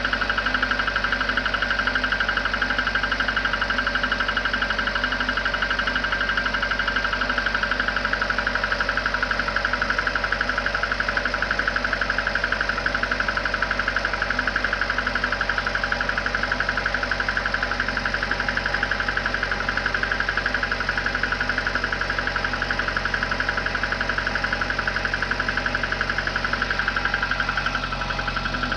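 VAZ-2110 16-valve four-cylinder engine idling steadily with a fast, even knocking, running cold after a start at about −10 °C. The owner says this knock fades as the engine warms and cannot be heard at 80 °C.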